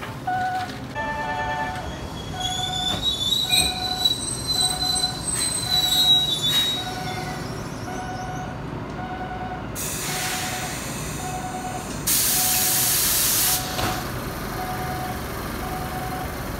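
Enoden (Enoshima Electric Railway) train at a station platform: a high metallic squeal a few seconds in, then two bursts of loud hissing air from the train around the middle, as the car pulls out. Throughout, a warning signal dings steadily, about once every 0.8 seconds.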